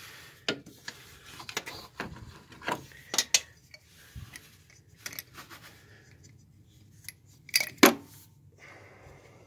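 Scattered metallic clinks and knocks as the old transmission vacuum modulator is twisted back and forth and pulled out of its bore, with the loudest knock near the end.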